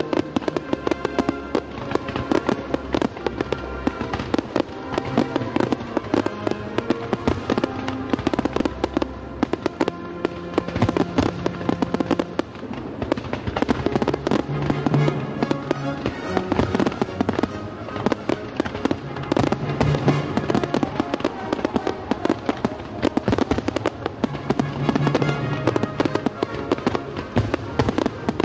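Fireworks display: a dense, continuous barrage of aerial shells bursting, many rapid bangs and crackles overlapping, with music playing underneath.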